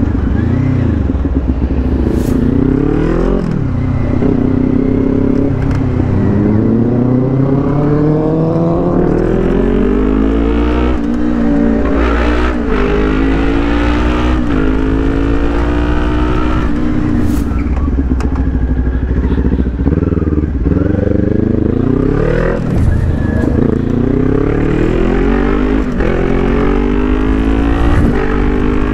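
Kawasaki Ninja 400's parallel-twin engine accelerating through the gears, its pitch rising and then dropping at each shift, over and over.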